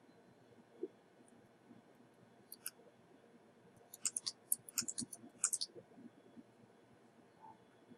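Small, sharp clicks of handling at a workbench: a couple near the middle, then a quick run of about a dozen.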